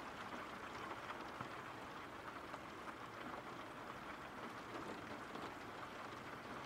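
Soft, steady rain, an even hiss flecked with a fine patter of drops.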